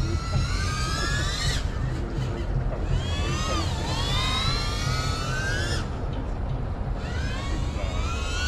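FPV quadcopter's brushless motors and propellers whining, the pitch rising and falling with the throttle in three passes. One pass fades out about a second and a half in, another runs from about two and a half to six seconds, and a third starts near the end, over a steady low rumble.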